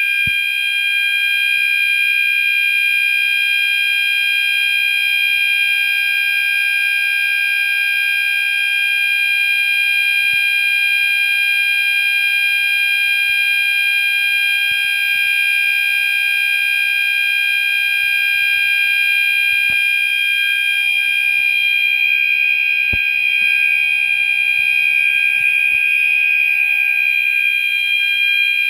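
Two Gentex fire alarm sounders, a GOS multi-tone sounder strobe on high volume and a Commander 4 horn on low volume, sounding together in one loud, steady, unbroken alarm tone.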